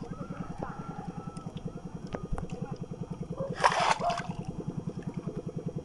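A small boat engine running steadily with a fast, even putter. A brief loud rush of noise cuts across it about three and a half seconds in.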